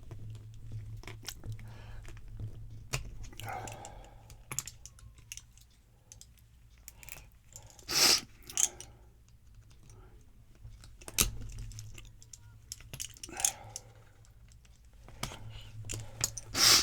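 Scattered light clicks and taps of small metal padlock parts being handled, with two louder clacks, one about halfway through and one near the end.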